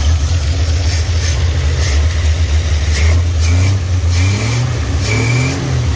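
1962 Chevrolet C10 pickup's straight-six engine running again just after being coaxed back to life, its speed rising briefly near the end and settling back, with a few short sharp clicks over the steady drone.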